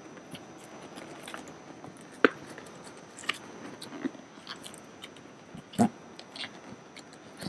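Hands handling an upholstered console cushion: rustling and scratching of the fabric cover, scattered light clicks, and two louder knocks, one about two seconds in and one near six seconds.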